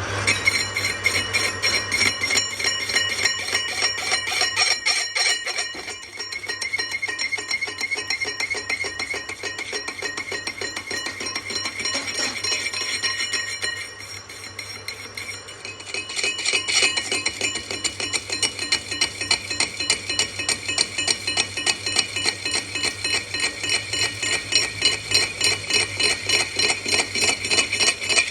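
Metal being struck in rapid, evenly repeated blows, each ringing with a bell-like metallic tone. The strikes dip briefly around six seconds in and again around fourteen seconds in.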